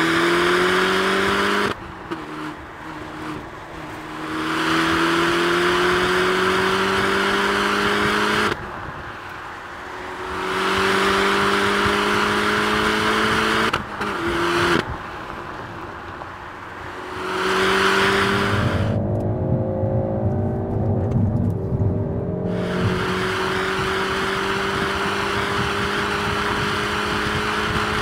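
Peugeot 308 GTi by Peugeot Sport's turbocharged 1.6-litre four-cylinder pulling hard. Its note climbs in pitch, breaks off briefly at each gear change or lift, and climbs again several times. About twenty seconds in it drops to a lower, duller note for a few seconds, then pulls again.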